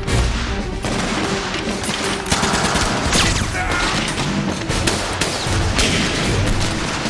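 Battle sound effects from a war film: dense, continuous rifle and machine-gun fire with many sharp shots, a music score running beneath.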